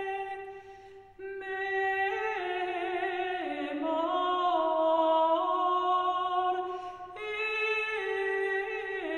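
Unaccompanied voices singing a slow chant in long held notes that move in steps. There is a breath-pause about a second in and another near seven seconds.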